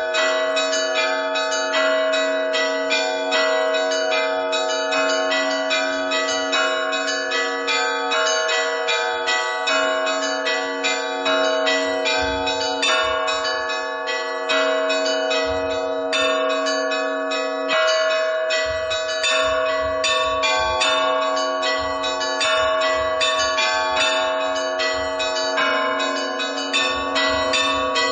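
Orthodox church bells ringing: several bells of different pitches struck in quick, continuous succession, their tones overlapping and ringing on.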